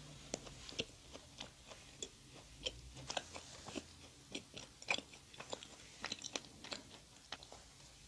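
A person chewing a mouthful of pink-iced doughnut. The chewing carries a run of sharp mouth clicks, about three or four a second.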